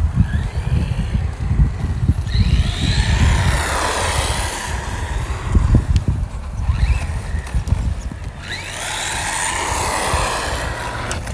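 Small electric RC car driving past twice, its motor whine rising and then falling in pitch, about two seconds in and again near nine seconds. Wind buffets the microphone throughout.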